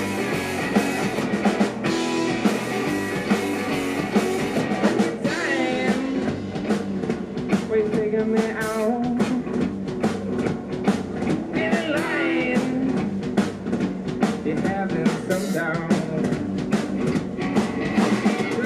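Rock music played by a band: a drum kit keeping a steady beat under guitar, with a singing voice.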